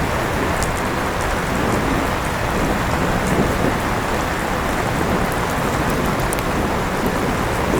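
Steady rain falling with scattered drop ticks, mixed with the even whoosh of an electric fan running.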